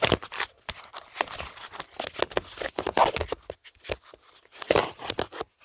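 Irregular clicks, taps and rustling of hands and tools working around a car's serpentine belt and tensioner while the new belt is fitted.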